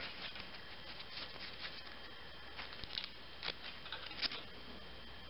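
Faint handling sounds of backing paper being peeled from small adhesive cushion pads and pressed onto a metal futon frame bar: a few sparse crisp clicks and light rustles, the loudest toward the end.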